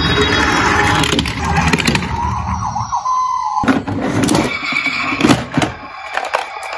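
Toy ambulance rolling down a wooden board with a rumble, and a siren wails briefly in the middle. After that, plastic toy ambulances knock and clatter against each other in a cardboard box.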